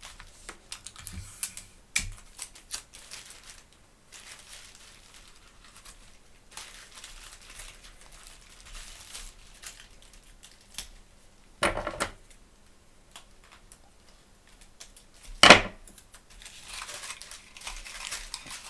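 Paper pages and adhesive tape being handled during a book repair: crinkling, rustling and small clicks, with two louder short tearing or ripping noises about twelve seconds in and again about three seconds later, the second the loudest.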